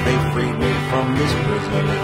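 Guitar music in a country style: a steady low bass note under picked and strummed notes that move about above it.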